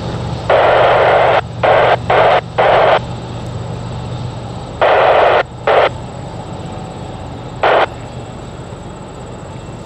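Steady low rumble of a double-stack intermodal freight train rolling past, broken by seven short bursts of static-like hiss that switch on and off abruptly, all within the first eight seconds.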